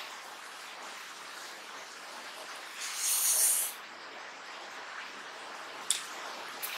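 Close-miked hand-eating sounds: fingers working rice and mutton curry on a steel plate over a steady hiss. There is a brief, louder hissing rustle about three seconds in and two sharp clicks near the end as a handful with a boiled egg goes into the mouth.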